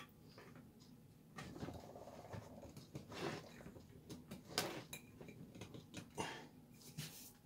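A metal screw-on lid being twisted shut on a large glass jar of cut tobacco: faint scraping of the threads with a few sharp clicks as it tightens.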